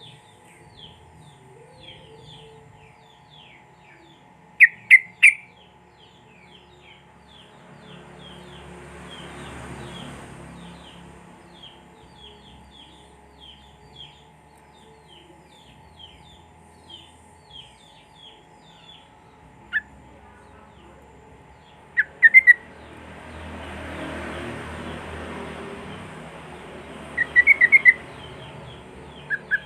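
Yellow-vented bulbul birdsong: loud short bursts of sharp chattering notes a handful of times over a steady run of soft chirps at about two a second. A faint steady hum runs underneath, with two gentle swells of hiss.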